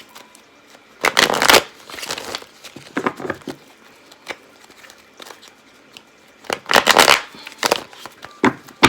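Tarot cards being shuffled and handled in several short rustling bursts, the longest about a second in and near the end.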